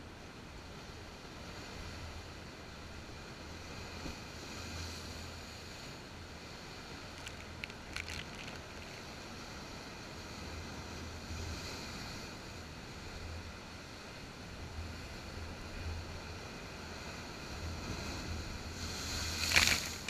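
Sea surf washing over a rocky shore, with waves breaking against the rocks in swells every few seconds, recorded through a waterproof camera housing. The loudest wave crashes near the end, throwing up spray.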